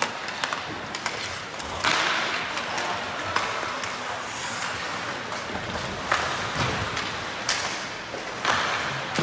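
Ice hockey play in a rink: scattered sharp knocks and clacks of sticks and puck, with two longer hissing scrapes, about two seconds in and near the end.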